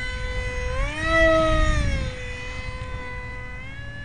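Electric motor of a battery-powered RC foam jet whining steadily in flight; about a second in the whine swells louder and higher in pitch, then sinks back to its earlier note, with a slight rise again near the end.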